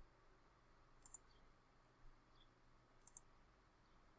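Computer mouse double-clicked twice, about two seconds apart: short, sharp clicks over near silence.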